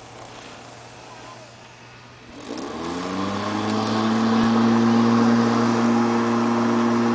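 Corded electric lawn mower's motor starting about two and a half seconds in, its hum rising in pitch as it spins up and then running steadily.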